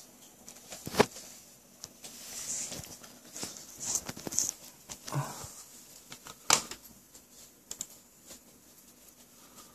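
Scattered sharp clicks and knocks of hard objects being handled, with short rustling between them; the loudest knocks come about a second in and again past the middle.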